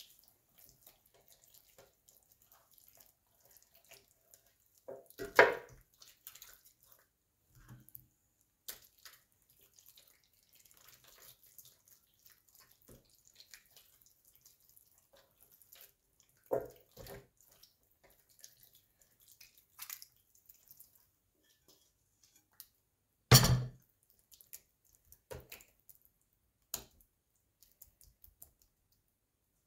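Soft wet squelching and dripping of hands rubbing a thick yogurt-paprika marinade into a raw chicken in a baking tray, broken by three louder knocks and a few smaller ones spread through.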